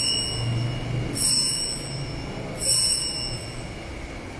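Altar bells rung three times, about a second and a half apart, each high bright ring fading quickly: the bells that mark the elevation at the consecration of the Mass.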